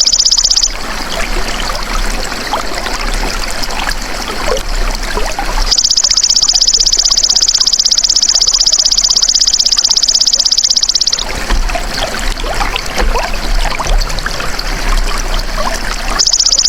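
Belalang emas (golden grasshopper) calling in bouts of a rapid, high buzzing trill, alternating with trickling, babbling water. The call breaks off just after the start, sounds again from about six seconds in to about eleven, and returns near the end. The water fills the gaps between the bouts.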